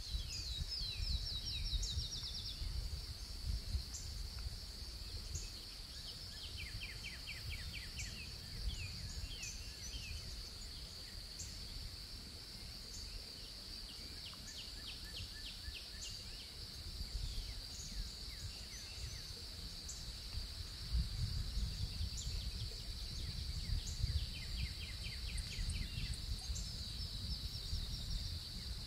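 A steady high-pitched insect drone, with birds calling in short rapid trills every few seconds. Underneath is a low rumble that swells about two-thirds of the way through.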